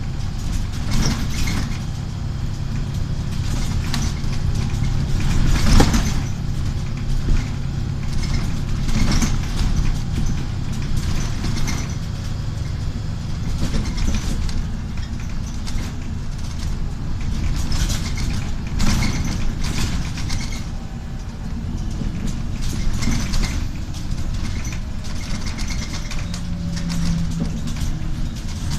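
Inside a Volvo 7000 city bus on the move: its Volvo D7C250 diesel engine running with a steady low hum, along with road noise and the rattle of the bus's fittings. Sharp knocks come now and then, the loudest about six seconds in.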